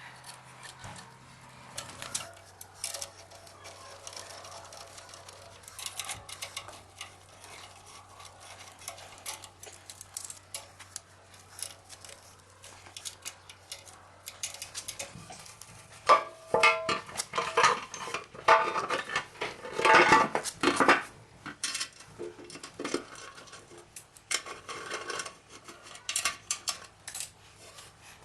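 Metal engine parts clinking and clattering as they are handled, with a louder run of ringing metallic knocks in the middle.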